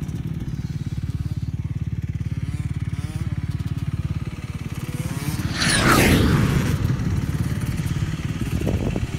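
Dirt bike engine idling close by with a steady, rapid low pulse. About five and a half seconds in, a dirt bike revs up loudly for about a second, its pitch sweeping down, then the idle carries on.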